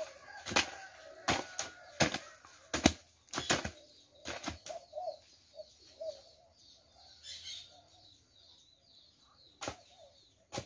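Hoe blades striking and chopping into a pile of earth being broken up for adobe mud: sharp strikes about every 0.7 s for the first four or five seconds, then a pause with one more strike near the end. Faint bird chirping in the background.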